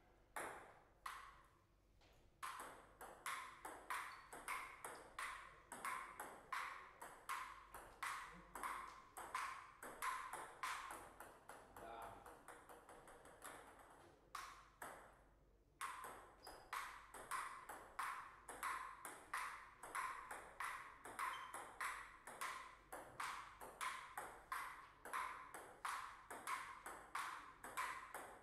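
Table tennis ball clicking back and forth off the paddles and the table in long rallies, about two hits a second. There is a short pause about halfway through, and then the clicking resumes.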